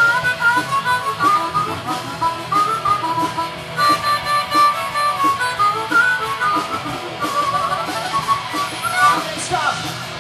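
Harmonica playing a blues solo over electric guitar and a drum kit in a live band; the harmonica line stops near the end while the band plays on.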